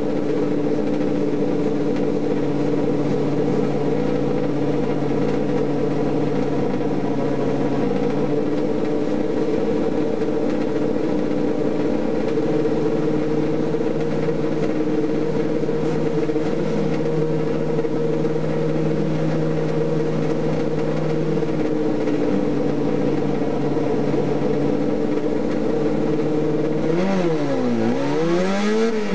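TC 850 race car's engine heard from inside the cockpit, running steadily at a constant pitch. Near the end the engine pitch dips and then climbs sharply, twice, as the car accelerates away.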